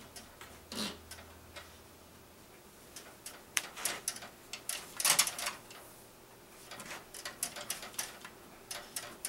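Hands working flexible water-cooling tubing through a metal PC case, making an irregular run of light clicks, taps and scrapes. The clicks and scrapes are loudest about five seconds in.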